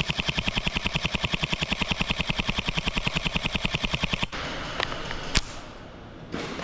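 Scorpion Evo–style airsoft electric submachine gun firing a long full-auto string, about ten shots a second, that stops abruptly about four seconds in. A steady background hiss follows, with a single sharp click about a second later.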